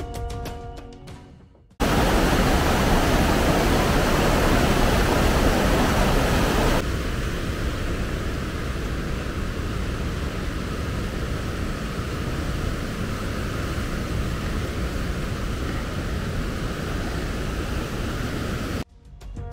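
Steady rushing noise that starts abruptly about two seconds in as background music fades out, louder for its first five seconds, then settling a little quieter and cutting off abruptly near the end.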